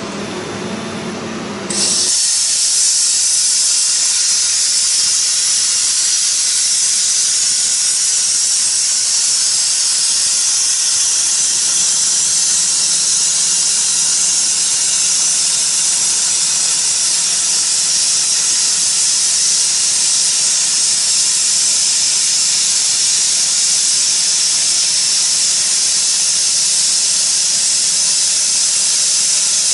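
CNC plasma cutter's torch striking its arc on 15 mm thick metal plate. The arc comes in suddenly with a loud hiss about two seconds in, and keeps up as a steady high hiss while it cuts. Before it strikes there is a lower mechanical hum.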